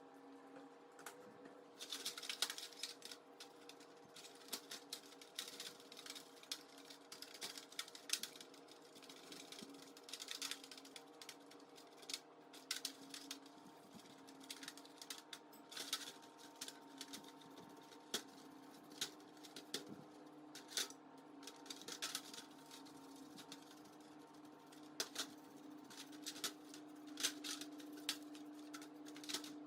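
Irregular light clicks and scrapes from hand work on small metal fan parts, over a steady low hum.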